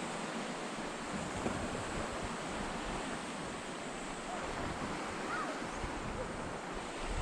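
Steady rush of surf and wind at the shore, with wind buffeting the microphone.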